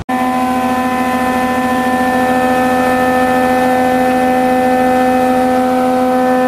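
Thickness planer running, a loud steady hum made of several pitches held level throughout.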